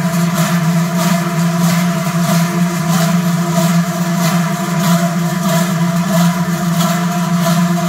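Massed large Swiss cowbells (Trycheln) swung by a marching column, a loud dense clanging that merges into a deep steady drone. The clangs swell together in regular strokes a little more than once a second as the bells are swung.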